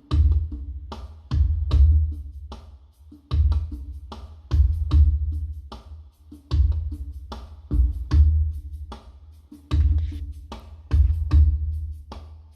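Music with a slow, heavy drum beat: deep bass-drum hits with sharp percussion strokes, repeating about every one and a half seconds.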